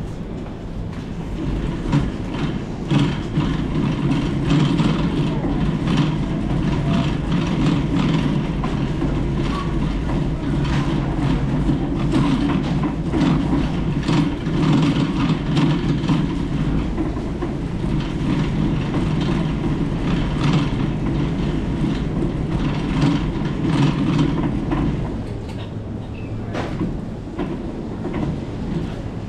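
Metal shopping trolley rolling over a tiled supermarket floor, its wheels rumbling steadily and the wire basket rattling with many small clicks. Near the end the rumble drops away as the trolley slows.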